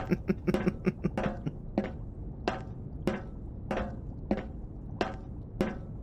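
Footsteps walking at a steady pace, one step about every half second or so.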